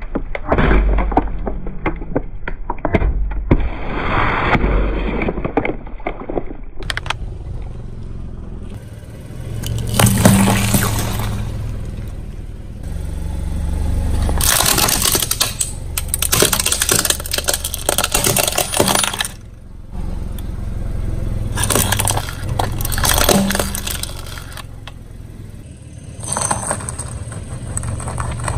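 A car tyre rolling slowly over objects and crushing them in turn: aluminium drink cans crumpling and bursting, a plastic toy water gun cracking and breaking, then courgettes starting to squash. Several separate bouts of cracking and crunching over a low steady rumble.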